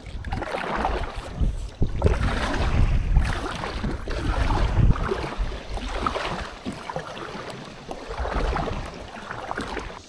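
Water splashing and lapping around a kayak on a river, with wind rumbling on the microphone.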